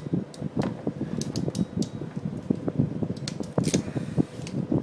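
Hand crimping tool clicking as it squeezes a blue insulated wire connector onto a tail-light wire: a run of irregular sharp clicks over the rustle of hands and wires.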